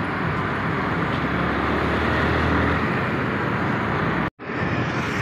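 Steady rush of wind and road noise while riding a Hero Xoom scooter in traffic. The sound drops out completely for a moment about four seconds in.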